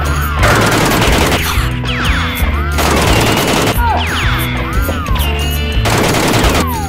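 Background music with a steady bass line, overlaid with three stretches of rapid-fire gunshot sound effects, near the start, in the middle and near the end.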